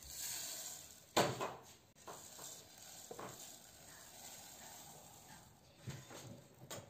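Toasted sesame seeds poured and scraped with a silicone spatula from a frying pan into a stainless-steel food-processor bowl: a hiss of falling seeds over the first second, a sharp knock just after it, then a few lighter knocks and scrapes.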